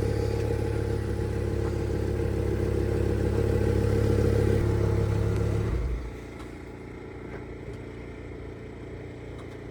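Lamborghini Huracán Evo engine running at a steady idle while the car is guided forward. About six seconds in, the sound drops off sharply, leaving a quieter steady hum.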